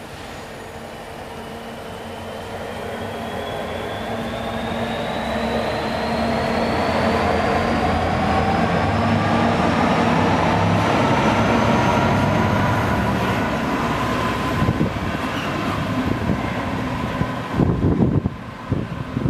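A GB Railfreight Class 66 diesel freight locomotive approaching and passing, its engine drumming under a motor whine that rises steadily in pitch as it gets louder. Near the end a Virgin Trains East Coast express rushes past close by with a rough, buffeting rush of air.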